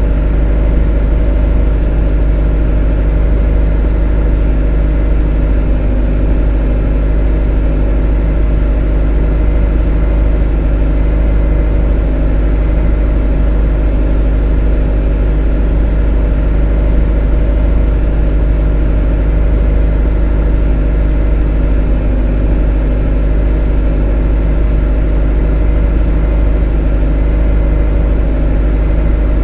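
A motor running at a steady speed: a constant, unchanging hum, heaviest in the deep bass, with a set of steady tones above it.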